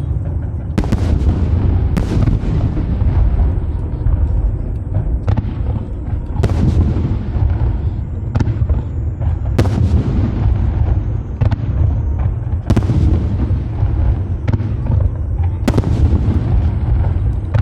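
Aerial fireworks shells bursting in a continuous display: a sharp bang every second or two over a constant low rumble of further booms.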